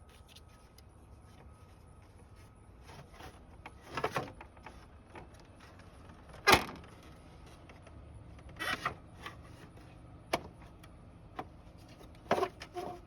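Scattered knocks and clunks of a car radiator being worked loose and lifted out of the engine bay, with one sharp knock about halfway through.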